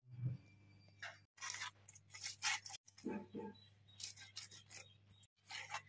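Whole pearl spot (karimeen) fish being rubbed and scraped by hand against a rough cement surface to strip the scales: a handful of irregular rasping strokes over a steady low hum.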